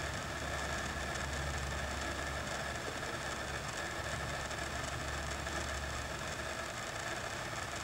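Steady low engine-like hum over an even hiss, swelling and easing slightly.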